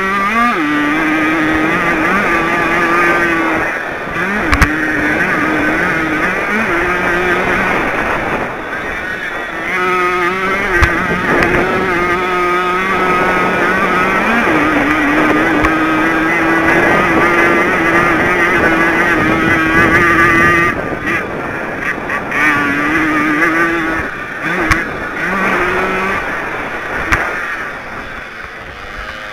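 Single-cylinder 50 cc two-stroke engine of a Jawa Pionýr-based race moped at high revs, heard from on board; its pitch holds steady on the straights and several times drops and climbs again as the throttle is closed and reopened for the corners. A couple of sharp knocks are heard along the way.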